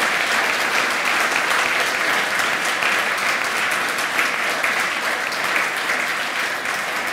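A large audience applauding: a dense, steady patter of many hands clapping, easing off slightly near the end.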